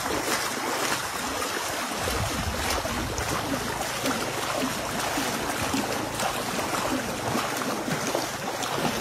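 Shallow muddy water splashing and churning steadily as hands sweep it toward a fishing net.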